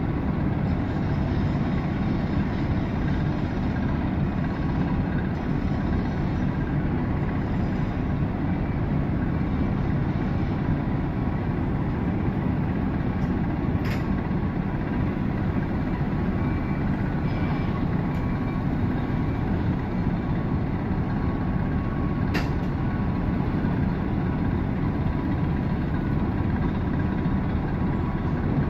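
Steady low rumble of a moored ferry's machinery and funnel exhaust, with a faint even hum on top. There are two brief faint clicks, one about halfway through and one some seconds later.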